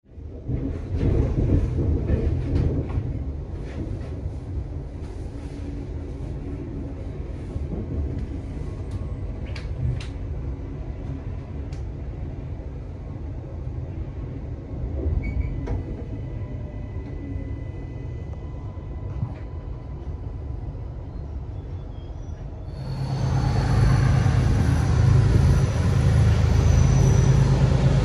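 Train running on the rails: a steady rumble with scattered sharp clicks and, midway, faint thin high tones. About 23 seconds in it changes abruptly to a louder, heavier rumble.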